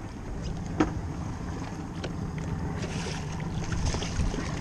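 Wind buffeting the microphone over a steady low rumble and water sloshing at the side of the boat, with one sharp knock just under a second in. From about three seconds in, splashing as a mahi-mahi thrashes at the surface on the gaff.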